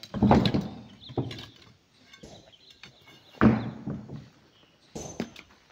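Hand hammer blows against a large boulder being broken up: a few separate heavy strikes at uneven spacing, the loudest near the start and about three and a half seconds in, with a quick pair near the end.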